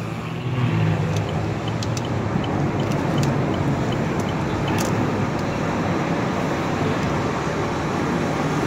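Helicopter flying low over a city street, a steady low drone mixed with car traffic noise, swelling about a second in and then holding.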